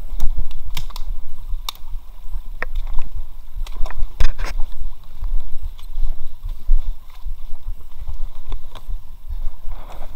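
Inflatable kayak bumping and scraping against a grassy, twiggy stream bank: scattered sharp knocks and rubs, the biggest cluster a little before halfway, over a steady low rumble on the body-worn microphone.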